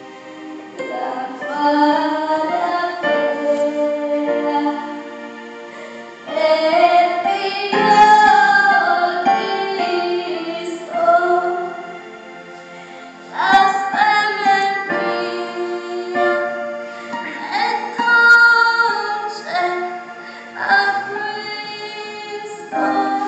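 A woman singing over instrumental accompaniment, in phrases of a few seconds each with short breaks between them.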